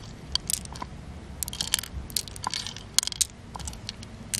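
Loose pearls clicking against one another in a cupped hand and against the mussel shell as they are picked out, a run of about a dozen sharp, irregular clicks.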